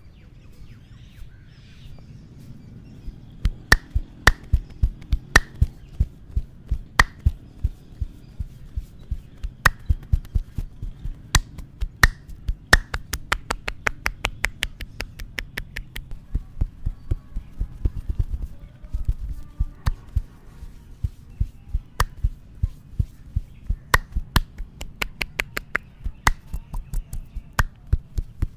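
Hands striking and snapping during an Indian head massage: sharp slaps, chops and finger snaps. Some come singly, and others come in quick runs of several a second.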